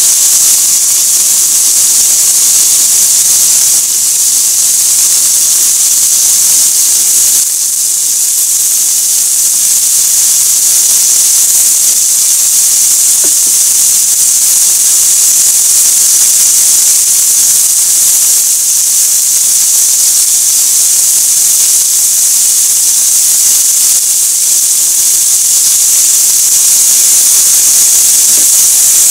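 Chicken pieces sizzling in a frying pan: a loud, steady high-pitched hiss.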